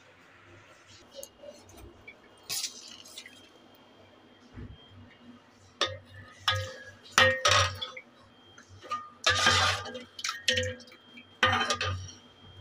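A spoon clinking and scraping against a bowl in irregular knocks, busiest in the second half, as when raita is being mixed.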